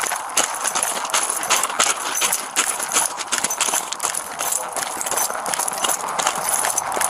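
Quick, steady footsteps on the loose gravel ballast of a railroad track bed, each step a short crunch, heard from the walker's own body. A steady hiss runs underneath.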